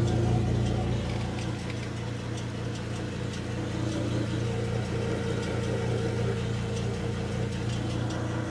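1940s General Electric refrigerator's compressor running with a steady electric hum, along with the whir of cooling fans and refrigerant hissing through the lines.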